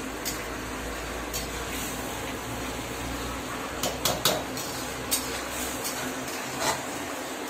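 Metal spatula scraping and knocking against a steel kadai while chicken masala is stirred, with a quick cluster of sharp knocks about four seconds in, over a steady background hiss.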